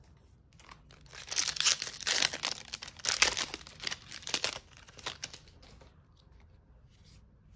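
A Magic: The Gathering collector booster pack's foil wrapper being torn open and crinkled by hand, a dense crackling from about a second in that dies away after about five seconds.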